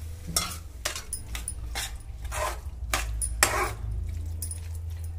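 Metal spatula stirring soya chunks and potatoes through thick masala in a kadhai, scraping and knocking against the pan in a run of irregular strokes.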